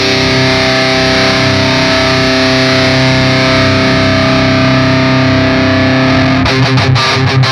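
Electric guitar played through an Electro-Harmonix Nano Metal Muff distortion pedal: a heavily distorted chord left sustaining, then, about six and a half seconds in, fast choppy picked riffing.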